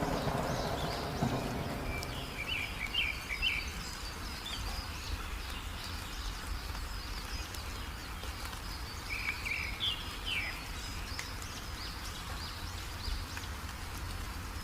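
Small birds chirping in two short bursts of quick notes, with a thin high repeated call running throughout, over a steady low rumble of a storm. At the start the tail of a thunder rumble dies away.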